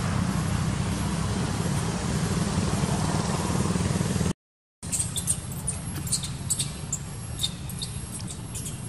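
Steady outdoor background noise with a low rumble, cut off abruptly about four seconds in. After a brief silence a quieter background follows, with a scatter of short high chirps.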